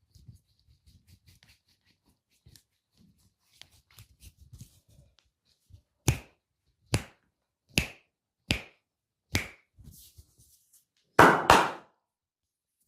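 Hand strikes during a massage: after faint rustling, five sharp slaps evenly spaced a little under a second apart, then a louder double slap near the end.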